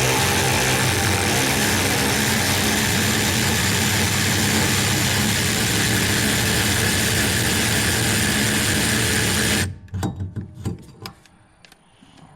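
A handheld power tool runs steadily for about ten seconds, spinning out a rear shock-absorber mounting bolt, then stops suddenly. A few sharp clinks and knocks of metal parts follow.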